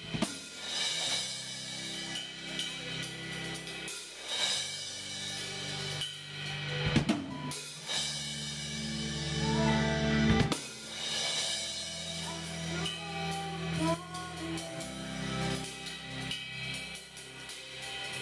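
A live band plays a song, with electric guitar and keyboard over a drum beat and a woman singing into a microphone.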